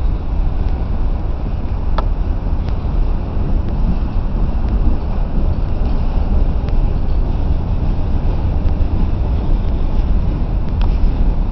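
BNSF freight train of covered hopper cars rolling past: a steady rumble of steel wheels on the rails, with a couple of short sharp clanks, one about two seconds in and one near the end.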